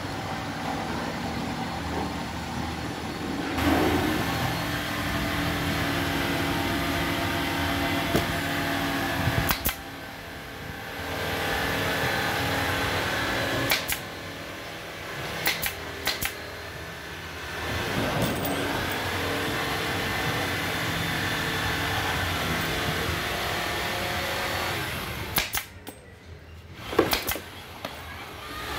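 A steady motor hum that fades out and comes back several times, with a few sharp clicks. Near the end come quick shots from a pneumatic staple gun.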